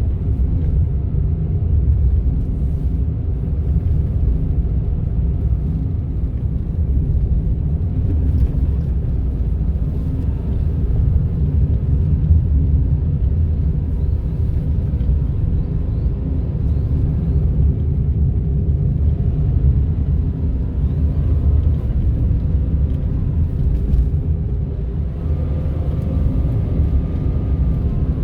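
Steady low road and engine rumble from a Honda N-ONE kei car's three-cylinder engine and tyres while driving, with a few faint steady tones above it. The car is at about 300,000 km and has a strange motor-like noise that the owner cannot place.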